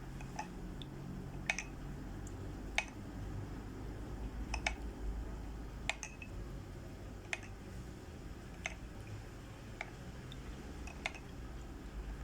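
A spoon stirring costus powder and honey into water in a cup, clinking lightly against the side about ten times, once every second or so.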